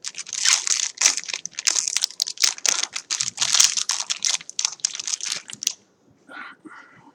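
Trading card pack wrapper being torn open and crinkled by hand, a rapid dense crackle that stops a little before the end, followed by a couple of softer rustles.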